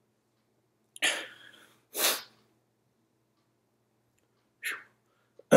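A man sniffing sharply twice, about a second apart, then a short faint breath near the end.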